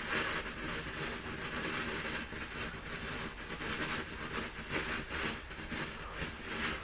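Phantasmic ground fountain firework burning with a steady, fluctuating hiss of spraying sparks.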